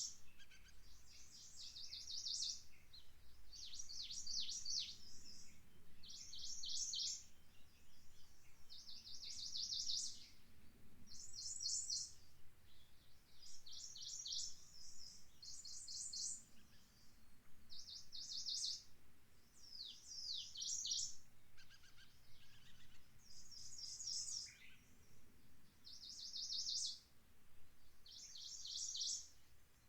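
A small songbird singing short, high phrases of rapid repeated notes, each about a second long, over and over every couple of seconds.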